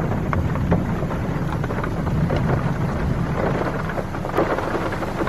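Heavy rain in a thunderstorm: many close raindrop hits sound as sharp ticks over a steady low rumble of thunder.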